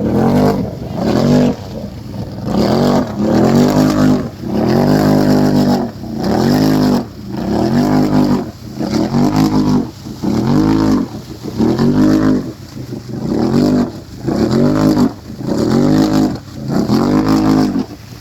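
ATV engine revved over and over, about once a second, the pitch climbing and dropping back with each blip of the throttle.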